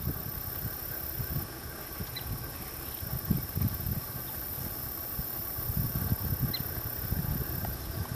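Quarter horse's hooves thudding irregularly on soft arena dirt as it turns and moves off under a rider, with a few short high squeaks.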